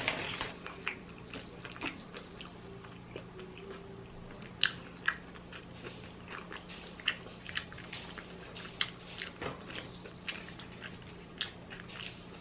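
Close-up chewing of a mouthful of fried chicken sandwich: irregular short wet smacks and crunches, a few a second, with a louder one about four and a half seconds in.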